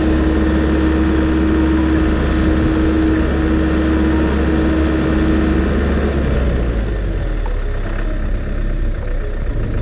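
Gehl skid-steer loader's diesel engine running with its hydraulic post-hole auger attachment working a hole. A steady whine over the engine stops about six seconds in, and the engine then runs lower.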